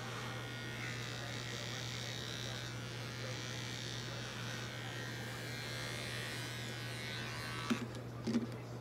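Small cordless pet clipper buzzing steadily as it trims the fur between a cat's paw pads. Two short knocks near the end.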